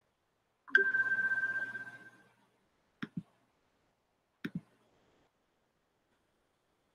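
A single ringing chime that fades out over about a second and a half, then two quick double clicks about a second and a half apart, from hands working the computer.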